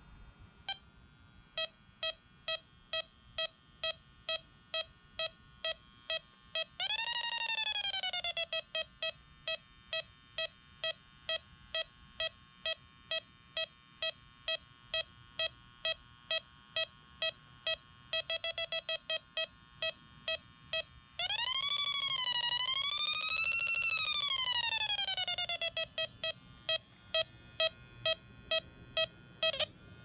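Yellow Jacket AccuProbe electronic refrigerant leak detector beeping steadily, about two to three beeps a second. Twice the beeping turns into a continuous alarm tone that rises and falls in pitch, briefly about a quarter of the way in and for about four seconds past the middle, with a burst of faster beeping just before the second: the detector sensing refrigerant at the leak in the condenser coil.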